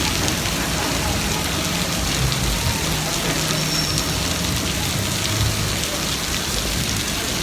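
Heavy thunderstorm downpour: rain pouring steadily with an even hiss of water hitting the street.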